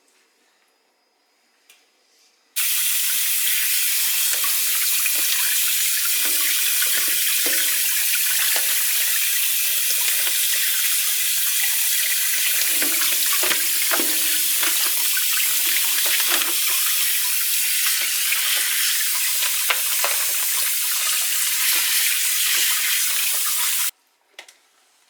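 Kitchen tap running in a steady stream, turned on a couple of seconds in and cut off abruptly about a second before the end, with faint knocks under the flow.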